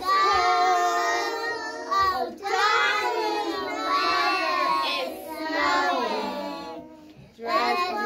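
A group of young children singing a Christmas song together in phrases, with a brief pause about seven seconds in before the next line starts.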